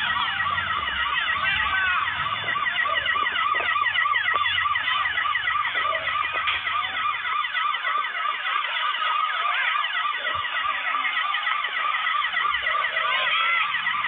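Several emergency-vehicle sirens sounding at once, overlapping fast rising-and-falling yelps.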